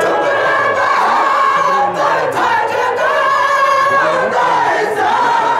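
Noha, a Shia mourning lament, sung by voices without instruments, with long held, wavering notes.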